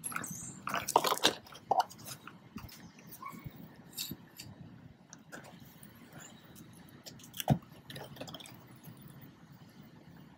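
Small hardware being handled by hand: scattered light clicks and clinks, with one sharper knock about seven and a half seconds in.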